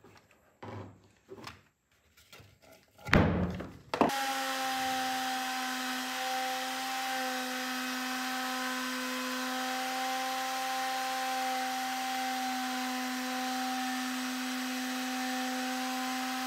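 A few light taps and a loud thump, then about four seconds in a plunge router on a flattening sled starts running at a steady high speed: a constant motor whine with hiss that holds the same pitch throughout.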